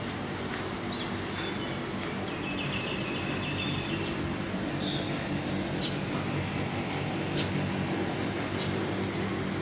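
Birds chirping, with a short trill about two and a half seconds in and sharp single calls in the second half, over a steady low mechanical hum.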